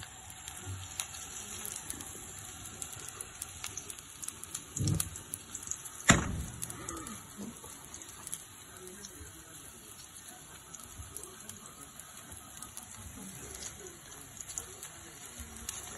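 A vegetable and egg batter sizzling and crackling in a frying pan, with a silicone spatula scraping through it. A low thump about five seconds in, then a sharp knock about a second later, the loudest sound.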